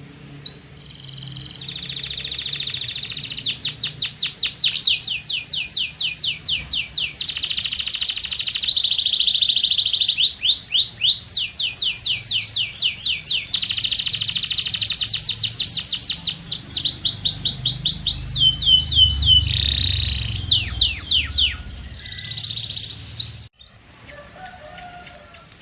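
Canary singing a long song made of fast trills: runs of quick, evenly repeated notes, each run switching to a new note pattern after a second or two, over a faint low hum. The song stops abruptly near the end.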